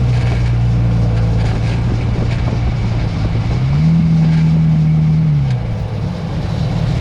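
Jeep Wrangler JK on the move, with a low steady hum that rises in pitch for about a second and a half midway and then drops back, and faint ticks over it: the rear-brake noise the owner is recording.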